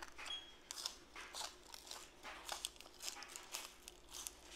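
Close-miked crunchy chewing: a person biting into and chewing crisp raw vegetables, with short crunches a few times a second.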